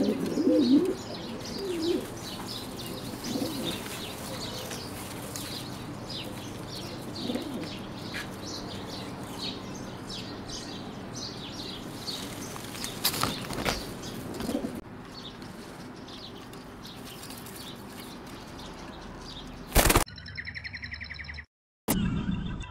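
Blondinette fancy pigeons cooing in the first couple of seconds, with small birds chirping steadily in the background and a brief burst of wing flapping about 13 seconds in. Near the end, a short electronic jingle.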